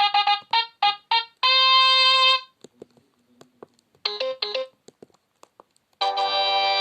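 Sony Ericsson W810i phone playing its built-in synthesized sound effects: a quick run of short beeping notes ending in a held note, a few short notes about four seconds in, and a fuller chord-like tone starting about six seconds in.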